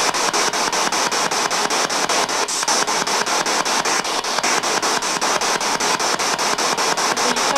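Spirit box radio sweeping through stations: a steady hiss of static chopped into about six pulses a second.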